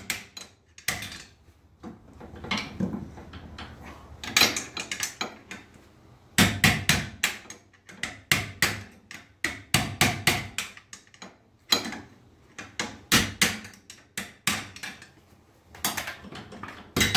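Hammer blows on metal, coming in repeated bursts of several quick strikes, knocking a crooked rear shock absorber's lower mount into place.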